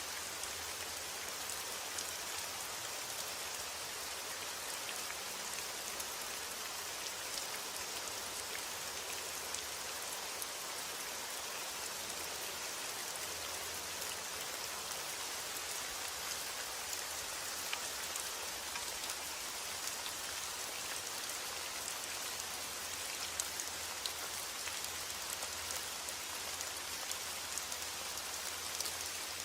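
Steady rain falling, with scattered individual drops ticking on a surface.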